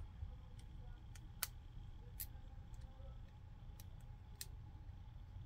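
Faint, scattered small clicks and ticks, about half a dozen, from fingers pressing flex-cable connectors back onto a smartphone's circuit board, over a faint low hum.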